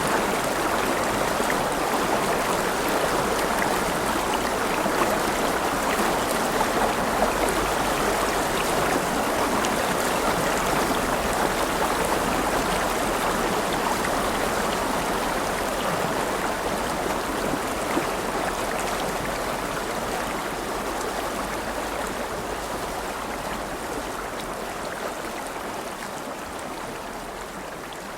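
River water flowing, a steady, dense rush of running water that fades out gradually over the second half.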